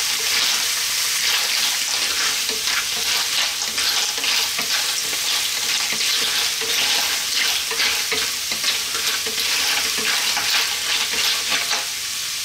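Fresh clams in their shells frying in hot oil with sliced onion in a nonstick wok, stirred with a wooden spatula: a steady sizzle with many small clicks of shell against shell and pan.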